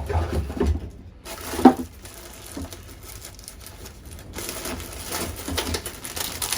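Indistinct handling noises in a small room: rustling and light knocks over a low rumble, with one sharp knock about a second and a half in.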